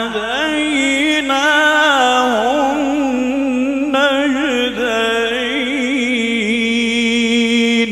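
A man's voice in melodic, ornamented Quran recitation (tajwid), one unbroken phrase of winding melisma ending on a long held note that stops near the end and dies away.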